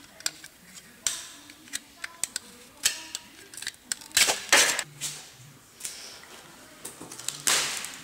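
Scattered clicks and short scraping, rustling bursts as a person tied to a metal chair twists his rope-bound wrists, with the rope and chair rubbing and knocking. The longest scraping bursts come about four seconds in and again near the end.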